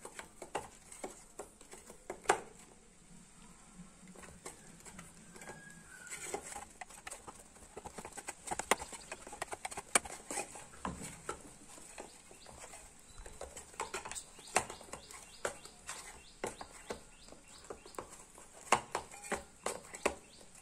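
Hands kneading stiff flour dough in a stainless steel bowl: irregular slaps, knocks and sharp clicks of dough, hand and bowl.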